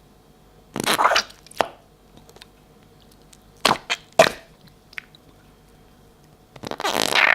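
Slime being squeezed and worked by hand, giving short wet squelching, popping bursts: one about a second in, three quick ones around the middle, and a longer run near the end.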